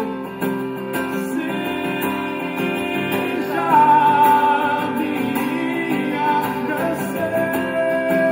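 Acoustic pop-folk song over steady chords, with a long held melody note that slides up into place about three and a half seconds in and another long note near the end.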